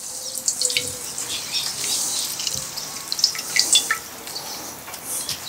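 A mandarin half squeezed by hand over a small stainless steel bowl: juice dripping and spattering into the bowl, with many small wet clicks and crackles from the squeezed fruit.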